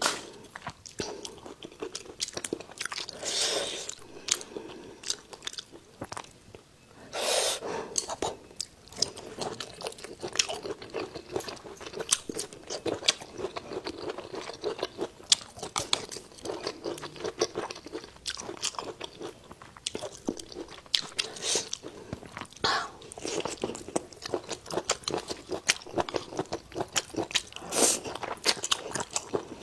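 Close-miked chewing and crunching of food in the mouth, many small wet clicks with a few louder crunchy bites every several seconds.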